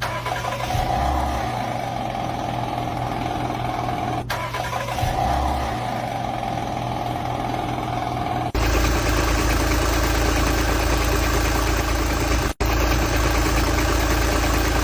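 Car engine running, in short clips: at first with a steady high tone over the engine, then, after a cut about eight and a half seconds in, a louder, deeper engine idling. These are among the annoying car-part noises being shown.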